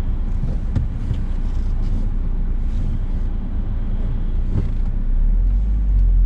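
VW Polo with a freshly rebuilt BAH engine being driven, heard from inside the cabin: engine and road noise make a steady low rumble that grows louder about five seconds in.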